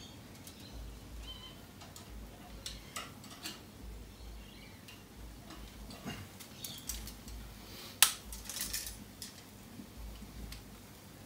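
Light metal clicks and clinks of kitchen tongs and the smoker's metal fittings, with one sharp metallic clank about eight seconds in followed by a brief cluster of clinks.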